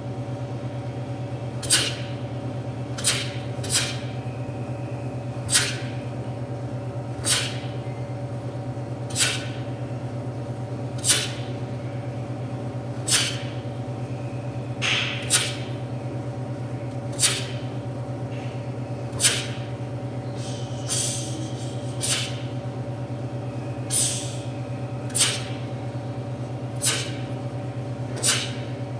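A taekwondo uniform snapping sharply with each punch and block of a solo pattern, about twenty crisp snaps one to two seconds apart, sometimes two or three in quick succession, over a steady low hum.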